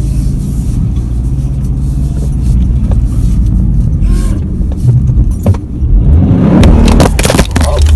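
All-wheel-drive car driving on a snow-covered road, its engine and tyres rumbling steadily, heard from inside the cabin. A few knocks and rattles come in the second half.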